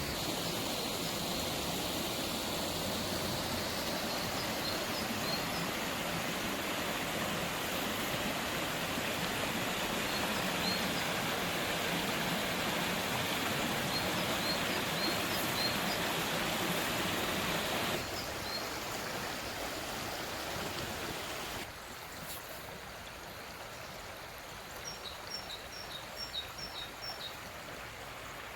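Running stream water with small birds chirping now and then. The water sound steps down to a quieter level about two-thirds of the way through, and near the end a bird gives a quick run of about six short chirps.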